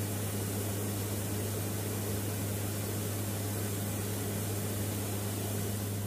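Steady in-flight cabin drone of a Lockheed WC-130J Hercules's turboprop engines and propellers, heard from inside the aircraft: an even hiss over a low, unchanging hum.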